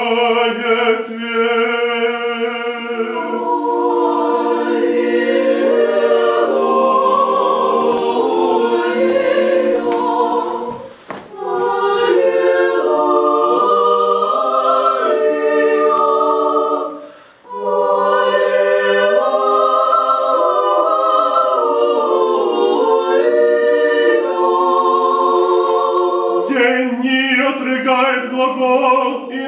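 Orthodox church choir singing liturgical chant a cappella in several voices, holding sustained chords, with two short breaks between phrases.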